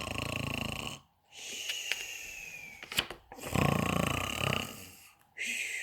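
A person imitating snoring, twice: a rattling snore on the in-breath, then a falling whistle on the out-breath.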